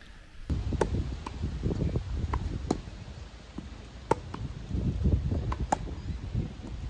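Tennis balls being bounced and struck with rackets on a grass court: several short, sharp pops spread over a few seconds. Under them, gusty wind rumbles on the microphone.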